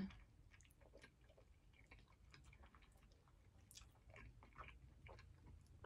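Faint chewing of a mouthful of food with the mouth closed: scattered soft mouth clicks and small wet smacks, a little busier in the second half.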